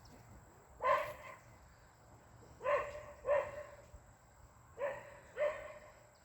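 A dog barking five times: one bark, then two pairs of barks.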